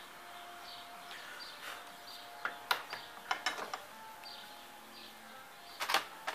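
Metal clicks and clinks of starter-motor parts and hand tools being handled at a steel vise and tool bench. A run of small clicks comes around the middle, and a louder clatter near the end.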